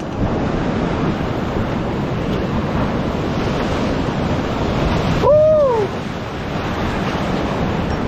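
Rushing whitewater of a river rapid churning around an inflatable raft as it is paddled through, with wind buffeting the microphone. About five seconds in, one person gives a short shout that rises and falls in pitch.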